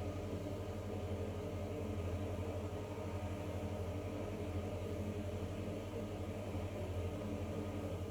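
Zanussi ZE 16 front-loading washing machine running steadily, a constant motor hum with a fast even flutter, during its final spin.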